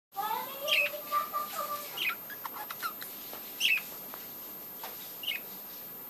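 Budgerigars chirping: a few short high chirps spaced a second or more apart, with some warbled notes in the first two seconds and light clicks in between.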